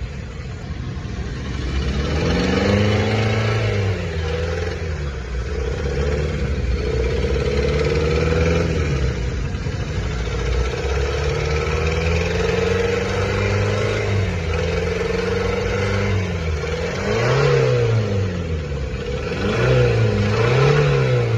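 Car engine being revved up and down repeatedly, its pitch rising and falling in slow sweeps. Near the end come a few quicker, sharper revs.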